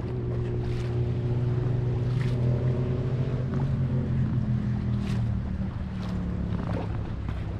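Motorboat engine running steadily with a low hum, water splashing against the hull. A higher engine note sinks in pitch past the middle and fades.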